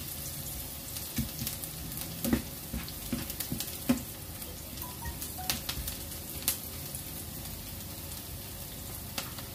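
Minced garlic and onion sizzling in hot oil in a nonstick frying pan, sautéing. A wooden spatula stirs them, with several sharp knocks and scrapes against the pan, and stops near the end, leaving a steady sizzle.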